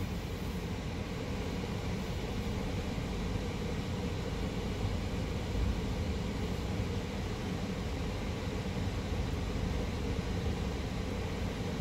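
Steady low hum of a car's engine and running gear, heard from inside the cabin.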